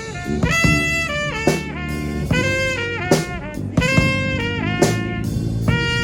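A small brass band of four horns with drums playing live: full horn chords held for a beat or two, broken by short accented hits, over drum and cymbal strikes.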